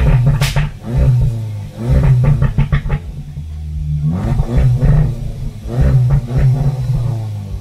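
Seat Leon Cupra 300's turbocharged 2.0-litre four-cylinder through a Milltek Sport exhaust, revved in several short blips from idle, with sharp crackles and pops from the exhaust as the revs drop.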